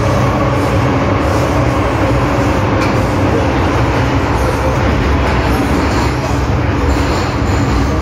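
Hong Kong MTR M-train electric multiple unit running at speed, heard inside the carriage: a steady loud rumble of wheels on rail with several steady humming tones from the running gear.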